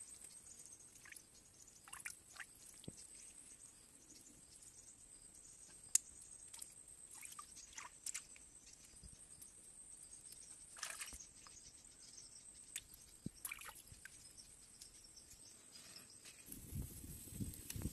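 Quiet outdoor ambience with faint, scattered clicks and scrapes of a small blade cleaning small fish on a wet banana leaf, and one sharper click about six seconds in. A louder low rustling noise comes in near the end.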